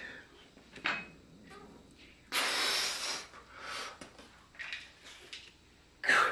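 A weightlifter breathing hard during dumbbell curls: a string of forceful, breathy exhalations, the longest and loudest about two and a half seconds in, with another sharp one near the end.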